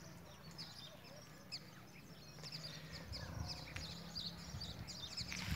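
Birds chirping in a chorus of short, high calls that grow busier about halfway through, over a low steady hum.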